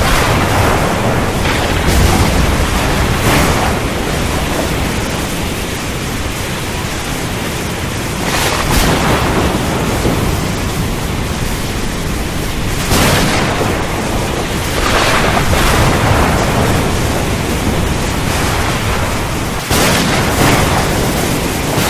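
Thunderstorm: a dense, steady rush of rain and wind with thunder rumbling low underneath, and half a dozen brief louder surges spread through.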